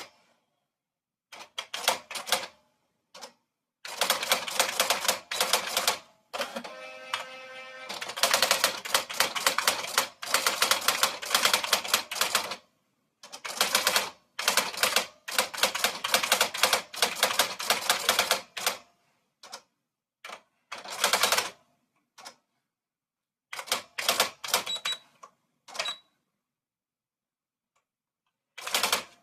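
Typewriter being typed on in quick runs of key strikes with short pauses between bursts. About six seconds in, a steadier stretch with a buzzing tone breaks in among the clicks.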